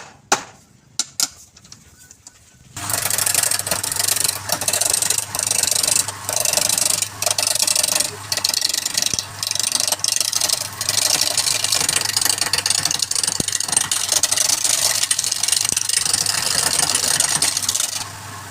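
A few sharp clicks, then a wood lathe's motor starts with a steady hum and a turning tool cuts into the spinning wood with a loud hiss. The cutting noise breaks off briefly several times while the motor hum runs on.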